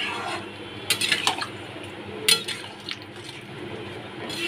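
Wooden spatula stirring a watery paneer curry in a metal kadai, the gravy sloshing. It scrapes and knocks against the pan several times about a second in, with one sharper knock just past two seconds.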